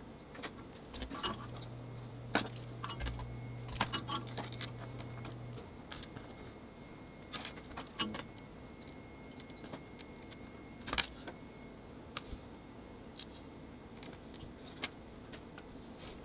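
Small hard parts and tools being handled during disassembly of a lightsaber hilt: scattered light clicks and metallic clinks, with a steady low hum for a few seconds near the start.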